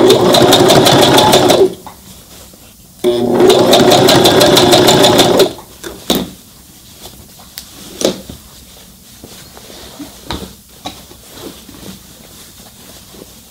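Brother ST371HD sewing machine stitching a denim jeans hem at a fast, even rate in two runs of about two seconds each, with a short stop between. It then stops, and only a few faint clicks and taps follow.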